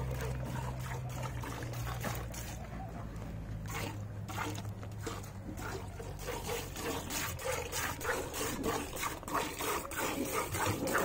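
A cow being milked by hand: milk squirting into a vessel in short, evenly paced strokes, about two to three a second, that settle into a steady rhythm from about four seconds in.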